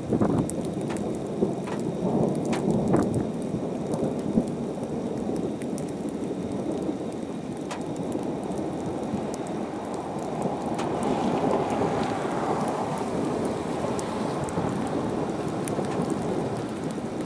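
Thunderstorm rain falling, with many sharp drop impacts close by, and thunder rumbling through it, swelling loudest about ten to thirteen seconds in.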